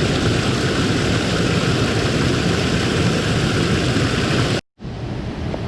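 Mountain stream water rushing over rocks, a loud steady roar that cuts off abruptly near the end and gives way to a quieter rush of water.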